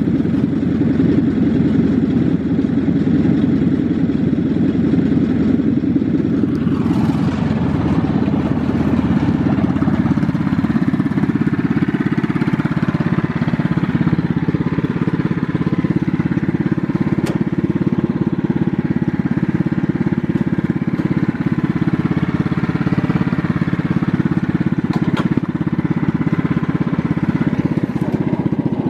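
Small lawn mower engine running steadily, its sound shifting about seven seconds in.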